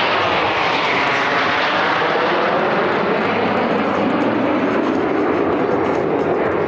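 Jet engines of a nine-aircraft Snowbirds formation of CT-114 Tutors passing overhead: a steady rushing jet noise whose pitch slowly falls during the first few seconds as they go by.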